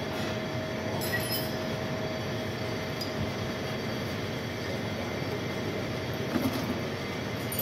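Steady mechanical hum and hiss with a faint constant whine, and a few light clicks: about a second in, at three seconds and near the end.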